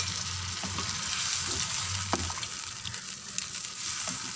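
Arvi (taro root) and potatoes sizzling in oil and masala in a pan, with water newly added for the gravy. A steady hiss with a few light clicks.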